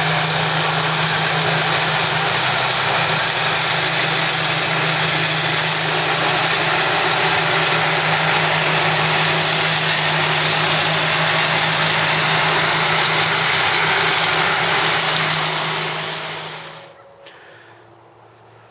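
Walk-behind flail mower running steadily as its flail rotor cuts through tall grass: a loud, even engine-and-rotor noise with a constant low hum. Near the end it dies away over a couple of seconds, leaving quiet outdoor background.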